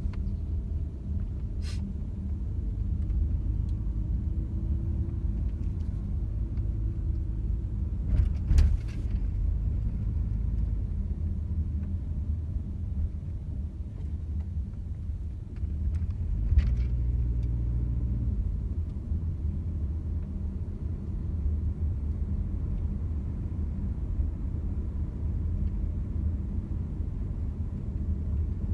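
A car on the move, with a steady low rumble. Sharp knocks come about eight seconds in and again about sixteen seconds in: the abnormal noise from the rear of the car.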